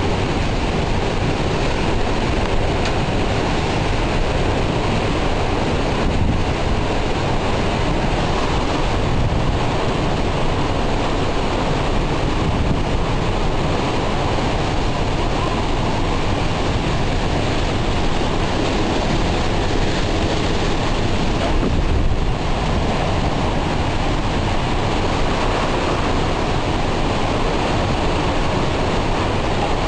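Hurricane wind roaring without a break and buffeting the microphone: a loud, dense rush strongest in the low end.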